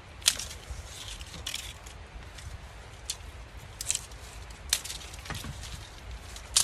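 Dry, hollow Jerusalem artichoke stalks being snapped and gathered by hand: a series of about six sharp cracks, roughly a second apart, with rustling between them.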